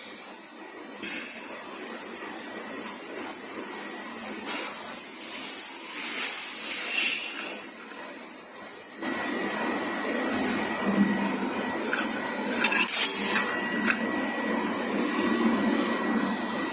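Handheld fiber laser welder working on mill-scale steel: a steady high hiss for about the first nine seconds that stops abruptly, then a lower, uneven noise with a faint steady whine and scattered crackles.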